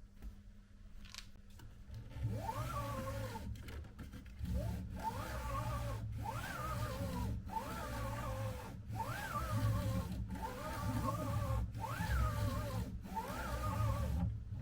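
Bambu Lab P1S 3D printer running. From about two seconds in, its motors whine upward in pitch and then settle, over and over about every second and a half, above a low rumble.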